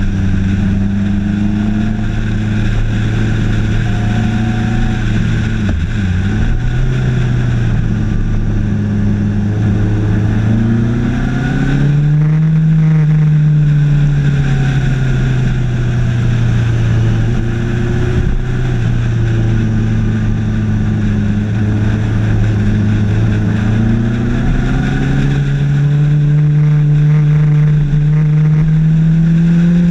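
Suzuki GSX1250FA's inline-four engine running on the move, its pitch climbing as the bike accelerates about a third of the way in and again near the end, easing off in between.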